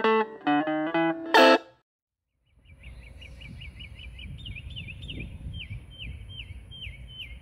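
Guitar music plucking separate notes and ending on a strummed chord. After a short gap comes outdoor ambience: a low rumble of wind with a bird repeating a short falling chirp about twice a second.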